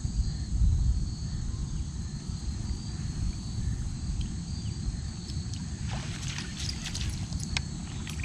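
Insects chirring steadily over a low rumble. Near the end come a few sharp splashes as a fish swirls at the surface among lily pads.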